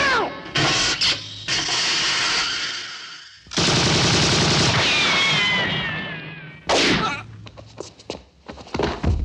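Action sound effects of gunfire: a few sharp shots in the first two seconds, then a long loud rush of noise with falling whistling tones, and one more sharp bang about seven seconds in, followed by faint scattered clicks.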